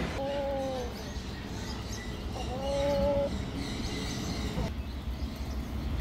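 A bird calling twice: two drawn-out low notes, each just under a second long and about two seconds apart.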